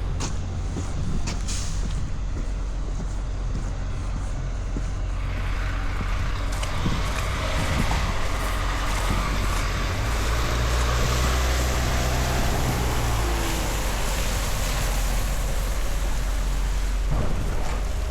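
Street traffic: a heavy vehicle's engine running close by with a low drone. A broad hiss of tyres or air builds about five seconds in.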